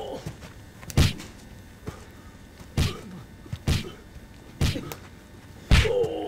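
Punches landing in a fist fight: five dull thuds, roughly one a second, with a man's grunt near the end.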